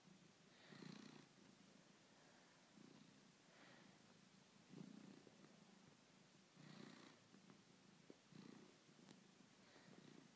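A domestic cat purring faintly while it kneads and suckles a fleece robe, the purr swelling and easing every second or two with its breathing.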